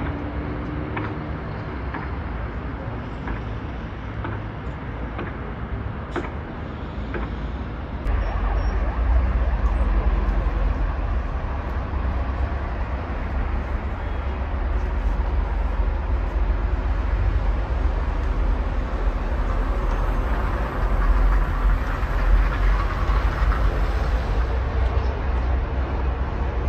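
Distant road traffic from a jammed multi-lane junction: a steady hum of many car and truck engines and tyres. About eight seconds in it grows louder, with a deeper rumble.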